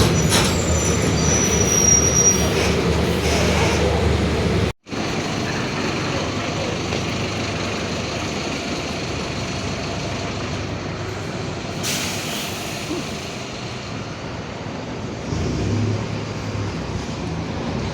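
Mercedes-Benz OF-1721 Bluetec 5 city bus running, heard from inside: a heavy low rumble with a thin high squeal for about two seconds near the start. The sound breaks off abruptly just under five seconds in and resumes as a quieter steady rumble and hiss, with a short sharp burst of air hiss about twelve seconds in.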